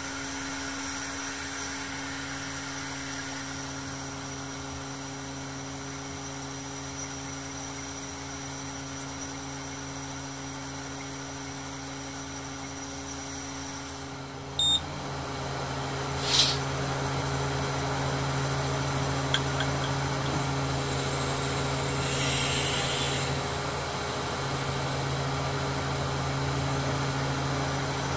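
Mobile crane's diesel engine running with a steady hum, growing louder about halfway through as the crane works the lifted load. A brief high beep and a sharp click come about halfway, and a short hiss near the end.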